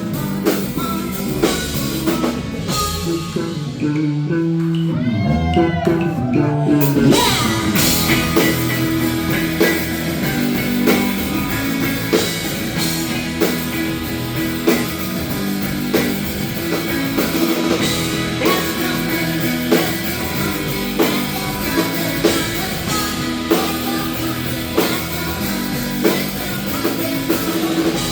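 Rock band music with electric guitar, drum kit and singing. About three seconds in the band drops to a sparse passage of sliding pitches, and the full band with a steady drum beat comes back about seven seconds in.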